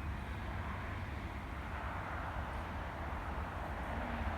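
Steady outdoor wind rumbling on the microphone, over an even background hiss.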